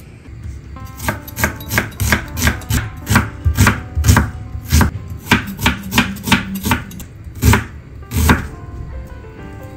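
Knife chopping a red onion on a wooden cutting board: quick, sharp knocks about three a second, starting about a second in and stopping just past eight seconds.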